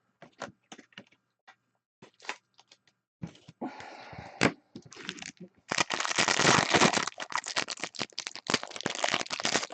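Computer keyboard typed in scattered clicks, then from about six seconds in a loud, dense crackling.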